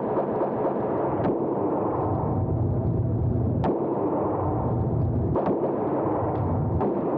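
Gunshots at a shooting range, four sharp, fairly faint cracks one to two seconds apart, over a steady low rumble of noise.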